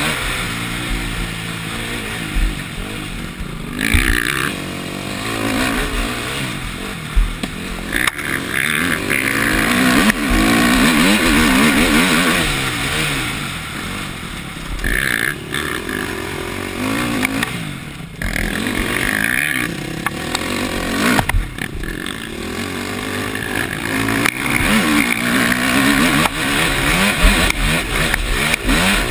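Four-stroke KTM motocross bike engine heard close-up from the bike, revving up and falling back again and again as the rider works the throttle and gears, with clattering knocks over the bumps of the track.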